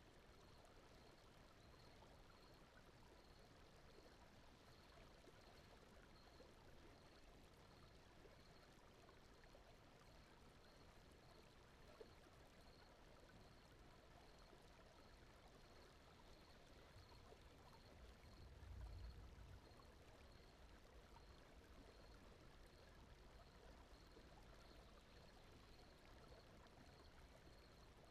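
Faint, steady brown-noise bed with a soft high chirp repeating a little under twice a second. A low rumble swells briefly about two-thirds of the way through.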